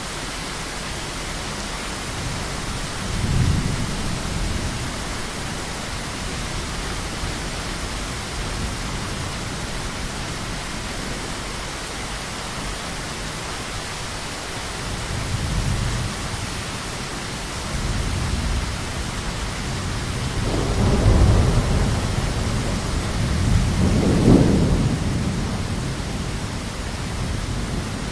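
Heavy, steady rainfall with rolling thunder: a short rumble about three seconds in, a couple of softer ones midway, and a longer, louder roll of thunder in the last third.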